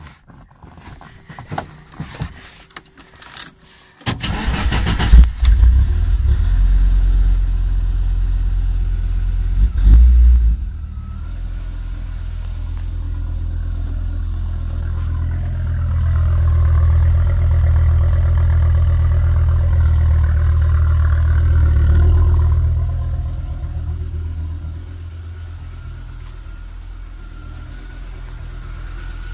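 Audi urquattro's turbocharged five-cylinder engine being started through its new Milltek exhaust: a few seconds of faint clicks, then it fires about four seconds in, is revved sharply twice and settles to a steady idle. The exhaust drone swells for several seconds in the middle and falls quieter near the end.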